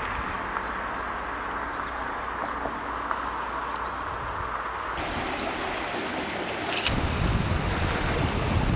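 Steady rush of a river in flood, an even hiss of moving water. About five seconds in it turns brighter and closer as the fast water below the bridge fills the sound, and about two seconds later wind rumbles on the microphone.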